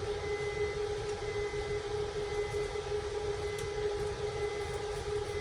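Electric suburban train standing at a station: a steady electrical hum over low rumble, with a short high electronic beep repeating about once a second.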